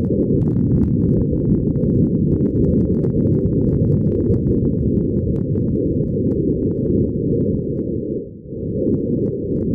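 Steady, muffled low rumbling noise with faint crackling on top, dipping briefly a little before the end.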